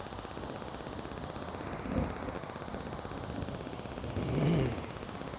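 Rain falling, heard as a dense, rapid crackle of drops landing close to the phone's microphone. Two short low-pitched sounds break through, the louder one near the end.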